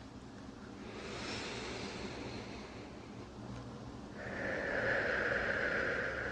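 Slow, deep human breathing close to the microphone: a softer breath about a second in, then a louder, longer breath from about four seconds in.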